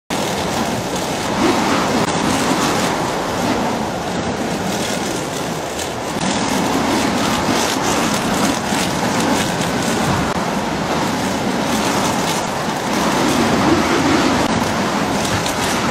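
Strong wind rushing on the microphone, mixed with the jet engines of a twin-engine airliner on a crosswind approach and landing in a storm. A loud, steady rushing that swells and eases in gusts.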